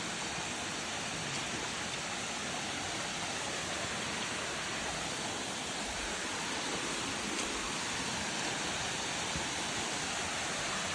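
Waterfall rushing, a steady even hiss of falling water with no change.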